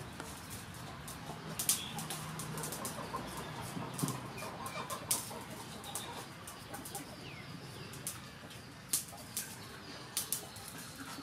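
Hand vegetable peeler scraping the skin off a potato in short, sharp strokes at irregular intervals.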